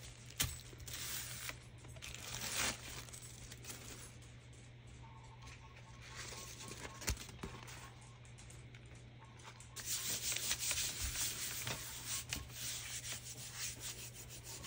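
Dry, scratchy rubbing of hands and craft materials against paper, in uneven strokes. It is sparse and quiet in the middle and becomes denser over the last few seconds.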